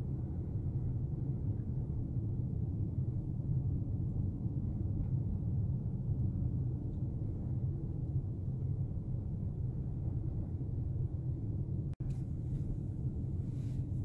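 Steady low rumble of a car driving on a paved road, heard from inside the cabin: engine and tyre noise. It drops out for an instant about twelve seconds in.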